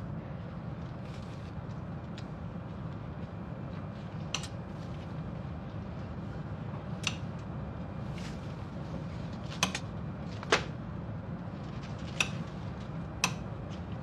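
Steady low drone of an airliner cabin in flight, with six sharp clicks or knocks at irregular intervals, the loudest two about ten seconds in.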